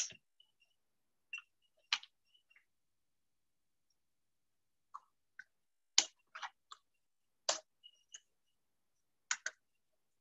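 Irregular sharp clicks in a quiet room, about eight of them, loudest at the very start and around six seconds in, with a few close together around six to seven and a half seconds.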